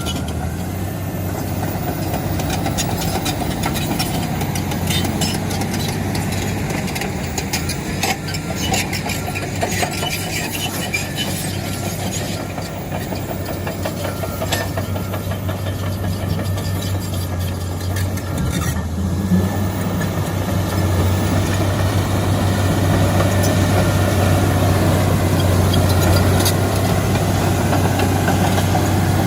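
Large bulldozer's diesel engine running steadily with a low drone, with many scattered clanks and knocks from the machine working. There is a short break a little past the middle, and the engine runs a bit louder afterwards.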